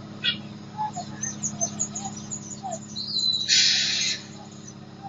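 Birds chirping over a steady low engine hum, with a sharp hiss lasting about half a second around three and a half seconds in.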